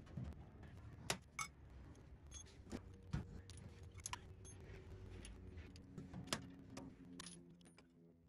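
Scattered light metal clinks and taps, a few with a short high ring, as steel valves are pulled out of a Ford Model A engine block and handled, over a faint low hum.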